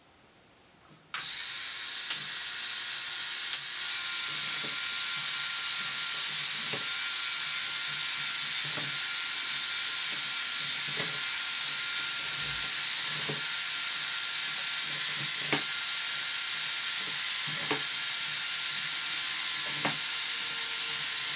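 Power Functions electric motors of a LEGO Technic 42055 bucket wheel excavator switching on about a second in and running steadily through the plastic gear train, with a high hiss and a thin whine, as the model crawls slowly on its tracks. A short click comes about every two seconds.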